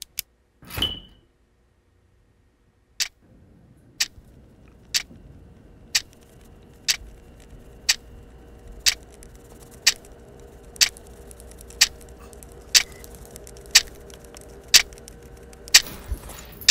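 A clock ticking steadily about once a second over a faint steady hum, after a couple of short clicks near the start.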